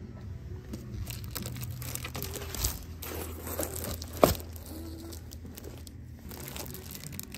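Crinkling and clicking of plastic A3 display-book portfolios being handled and flipped, with one sharp knock about four seconds in.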